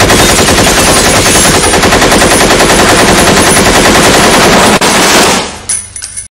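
Machine-gun sound effect dubbed over a cardboard replica gun: sustained rapid automatic fire that eases off after about five seconds, trailing into a few high ringing clinks before it cuts off.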